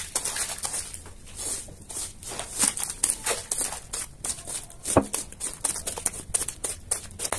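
Push-broom bristles scrubbing a wet, foamy, muddy rug in quick back-and-forth strokes, a scratchy swish with each stroke, several a second. A single sharp knock about five seconds in.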